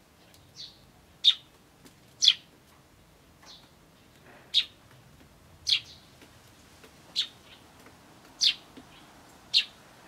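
Eurasian tree sparrow giving short, sharp "chun" chirps, about one a second and some louder than others.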